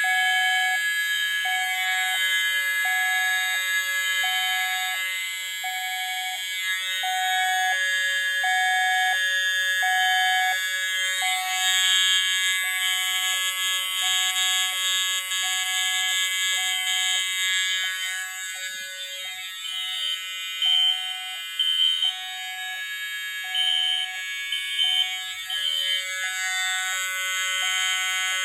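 Several fire alarm horns sounding together on a bell test: a steady buzzing horn, with a lower tone pulsing about once a second and, in the second half, short higher beeps over it.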